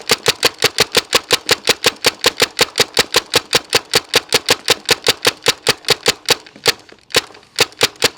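Tippmann TMC paintball marker firing rapid semi-automatic shots on compressed air, about six sharp pops a second, with a brief pause about seven seconds in before the shooting resumes.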